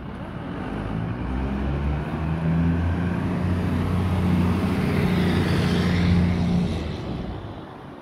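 A pickup truck driving past close by: a low, steady engine note with tyre and road noise that builds over several seconds, is loudest about six seconds in, then fades away.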